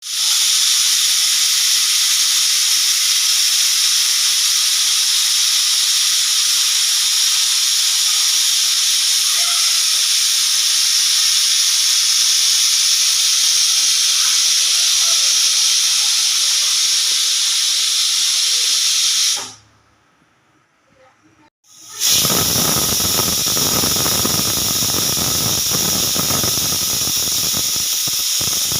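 Pressure cooker whistle blowing off steam in a loud, steady hiss. It cuts out for about two seconds around two-thirds of the way through, then starts again with a rougher, fluttering sound that reaches lower.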